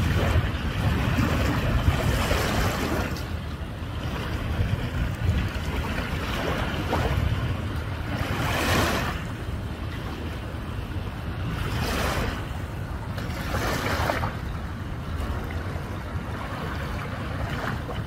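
Small waves lapping and washing over a rocky, pebbly shoreline, a soft swell of surf every few seconds, with wind rumbling on the microphone throughout.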